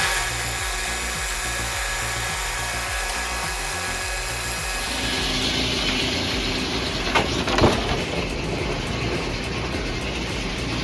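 Old 56-inch circular saw running, with a steady mechanical noise. About halfway through the sound turns brighter and more rushing, as when the blade goes into wood, and a couple of short knocks follow a little later.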